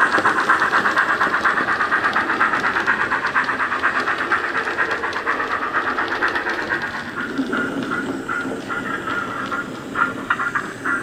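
Sound decoder (Loksound 5 micro) in a model USA tank 0-6-0T steam locomotive playing rapid, rhythmic steam exhaust chuffs through its small speaker, fading as the loco runs away. From about seven seconds in the chuffs come slower and more widely spaced.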